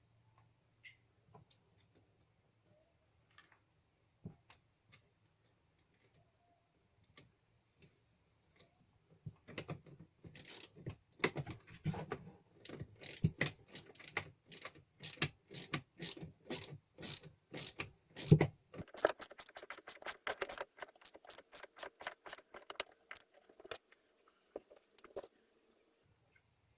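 Ratchet wrench being worked in quick strokes, its pawl clicking rapidly, most likely tightening nuts on the battery isolation switch or cables. A few scattered clicks come first, then steady runs of ratcheting from about ten seconds in until near the end.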